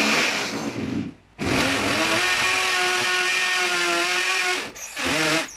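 Corded electric drill boring a screw hole into the wall. It runs briefly, stops about a second in, then runs steadily for about three seconds, with a short final burst near the end.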